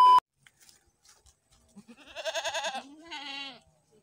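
A steady test-card beep cuts off just after the start. About two seconds in, a goat bleats twice: a wavering, quavering call followed by a shorter one.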